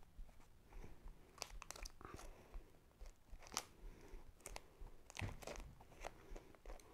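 Faint crinkling and scattered light clicks of plastic packaging being handled and turned over.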